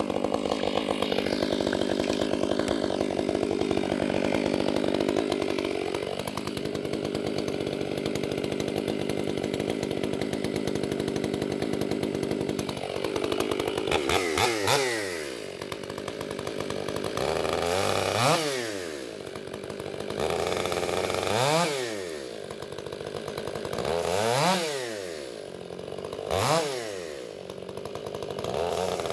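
Stihl MS500i fuel-injected two-stroke chainsaw running steadily. About halfway in it starts revving up and easing off every three seconds or so as it works into ash logs.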